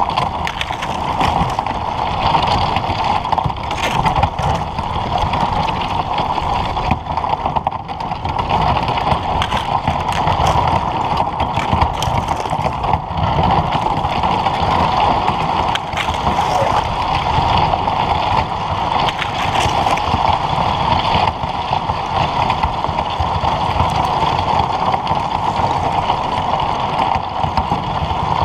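Old Town Vapor kayak hull pushing through thin broken lake ice: a steady rushing, gurgling wash of water, with frequent small clicks and crackles of ice pieces against the hull.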